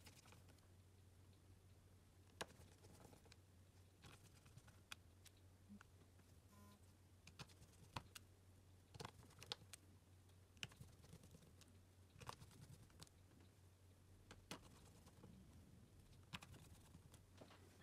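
Near silence with faint, irregular clicks and taps about once a second from small tools and parts being handled during a phone screen repair, over a low steady hum.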